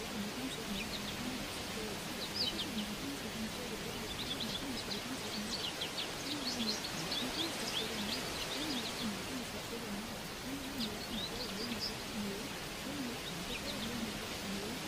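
Birdsong: scattered bursts of short high chirps over a steady hiss of background noise, with a faint low voice running underneath.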